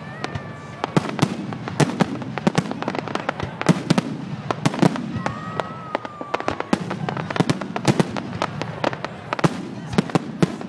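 Fireworks display: a dense, continuous barrage of sharp bangs and crackles over a low rumble. Two short whistling tones sound, one at the start and one about five seconds in.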